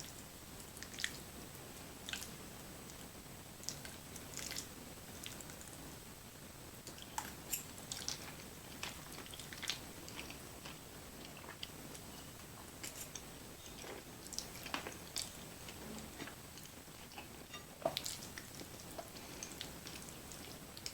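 Close-miked chewing of creamy fettuccine alfredo with chicken: irregular wet mouth smacks and clicks.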